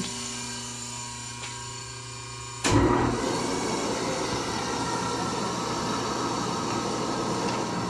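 A rotary phase converter hums steadily. About three seconds in, the Pratt and Whitney lathe's 3-horsepower three-phase motor is switched on with a sudden jolt, and the lathe then keeps running with a steady mechanical whir.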